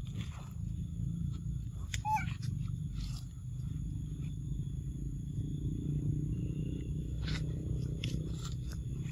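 Monkeys handling and eating a piece of fruit on leafy ground: scattered rustles and small clicks over a steady low rumble, with one brief high squeak about two seconds in.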